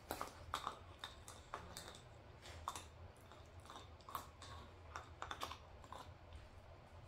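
Dog gnawing on a hard chew toy hanging on a rope, its teeth clicking and scraping against it in quick, irregular clicks.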